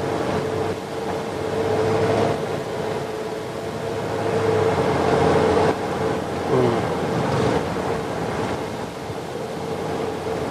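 Car driving along a road: steady road and wind noise with a constant hum.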